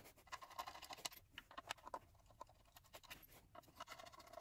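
Near silence, with faint irregular clicks and scratches as the secondary air pump and its metal bracket are handled.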